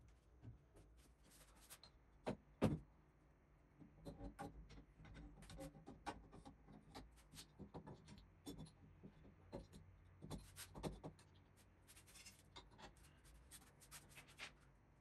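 Faint clicks, rubs and small knocks of steel CNC parts being handled and fitted, a ball screw and guide rods shifted through their supports and blocks, with two louder knocks about two and a half seconds in.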